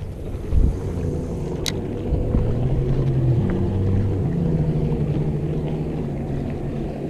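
A motorboat's engine running steadily out on the water, a low hum whose pitch shifts a little three to four seconds in. A single sharp click about a second and a half in.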